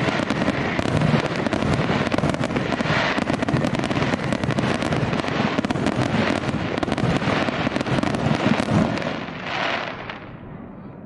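Fireworks going off in a dense, continuous barrage of rapid pops and crackles, thinning out and fading near the end.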